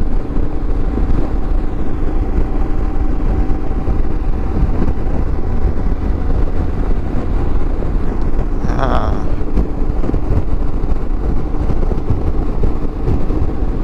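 Wind rush and road noise from a Yamaha Super Ténéré XT1200Z cruising at highway speed, with its parallel-twin engine humming steadily underneath. A brief wavering pitched sound comes through about nine seconds in.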